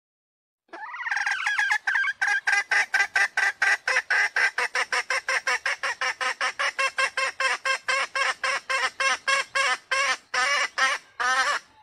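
Male green junglefowl calling: a long run of short, evenly spaced notes, about three or four a second, starting about a second in and stopping just before the end. It is a lure call meant to draw junglefowl in.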